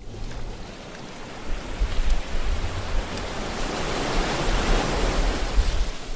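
Ocean waves surging and rushing, a steady wash of water noise over a low rumble that swells about a second and a half in.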